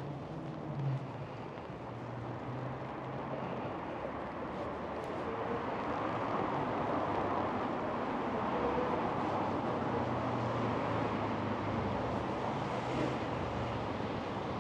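City street traffic: a steady wash of passing vehicles that grows louder over the first few seconds and then holds, with a low engine hum coming and going.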